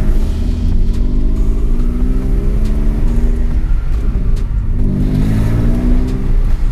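BMW E46's engine heard from inside the cabin, accelerating with its pitch rising, dipping about four seconds in, then climbing again.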